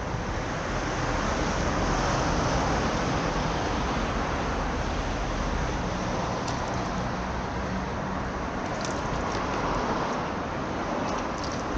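Road traffic: the steady noise of cars driving past, swelling a little about two seconds in and again near ten seconds.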